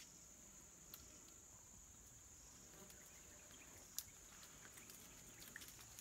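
Near silence with a faint, steady, high-pitched insect drone, and a single sharp click about four seconds in.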